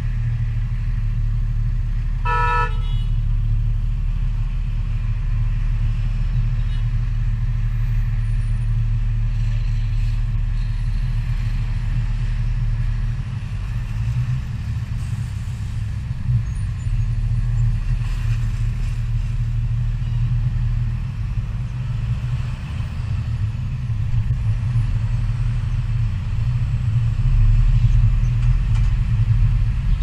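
Car engine and road noise heard from inside the cabin, a steady low rumble while driving. A brief car horn toot sounds about two and a half seconds in.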